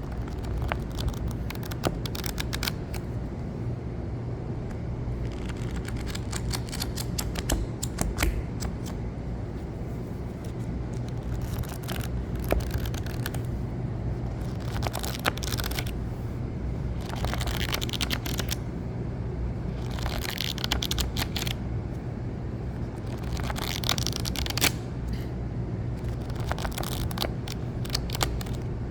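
Paper book pages being flipped through quickly: irregular flurries of crisp rustles and sharp flicks, some pages turned singly and some in quick runs. A steady low hum lies underneath.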